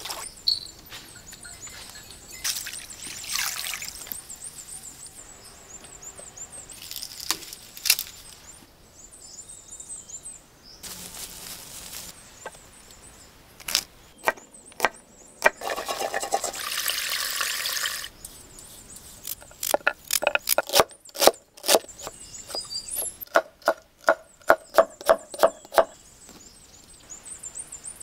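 Tap water splashing over a cauliflower head being washed, then a cleaver cutting cauliflower on a wooden board: a run of sharp knocks, densest in the second half. Faint high chirping runs underneath.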